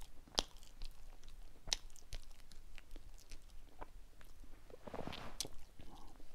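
A person chewing food close to a clip-on microphone, with scattered sharp mouth clicks and a short rustling smear about five seconds in.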